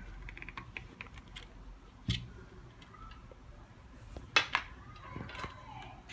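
Scattered light clicks and taps of small objects being handled, with two louder knocks about two seconds and four seconds in.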